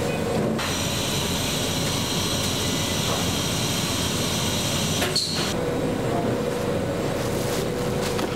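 Steady hum of meat-packaging machinery, with a high whine that stops about five seconds in after a short knock, leaving a lower steady hum.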